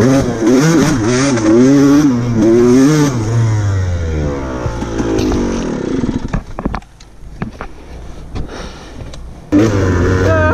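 Enduro dirt bike engine revving up and down, then the revs fall away for a few seconds, with scattered clicks and knocks. The engine picks up loudly again near the end.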